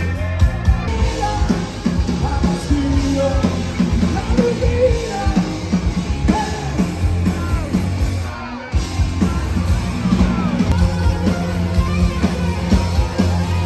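Live band playing loudly on stage, with drum hits and a singing voice over guitar and bass; the music drops out briefly about eight seconds in, then comes back.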